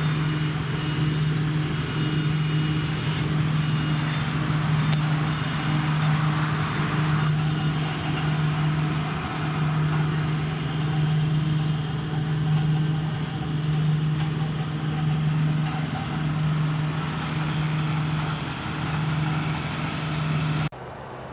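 Combine harvester running steadily while harvesting grain, a constant low engine and threshing drone that cuts off abruptly less than a second before the end.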